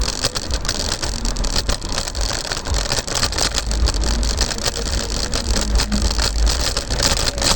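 Kick scooter rolling over pavement: a steady rolling rattle dotted with frequent sharp clicks and knocks, over a low rumble.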